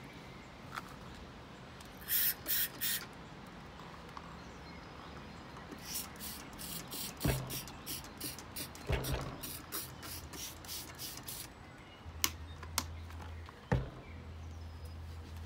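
Trigger spray bottle of window cleaner squirted three times in quick succession, then a run of quick, rhythmic rubbing strokes of a microfiber cloth on a glass lamp shade. A few sharp knocks are scattered through.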